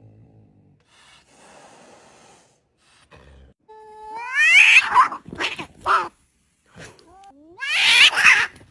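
Angry cats fighting: a faint hiss early on, then loud drawn-out yowls and screeches. The two loudest come about four and eight seconds in, with shorter cries between them.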